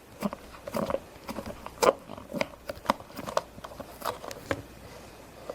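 Irregular light clicks and knocks of plastic Play-Doh molds and toy pieces being handled, about a dozen over a few seconds.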